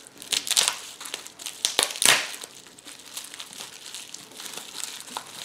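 Plastic cling wrap crinkling as hands peel it off a wrapped stone. The crackles come in uneven bursts, loudest in the first couple of seconds, then go on more softly.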